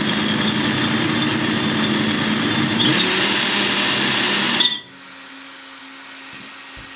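Two brushless RC motors on a test rig spinning 3D-printed double-helical (herringbone) gears through a 5:1 reduction, running steadily. The sound gets louder about three seconds in, then cuts off suddenly near five seconds in, leaving a faint steady hum.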